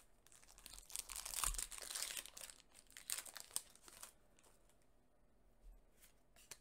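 Foil trading-card booster pack wrapper torn open and crinkled by hand: a crackling rustle starting about a second in and lasting about three seconds, then only faint handling noise as the cards are slid out.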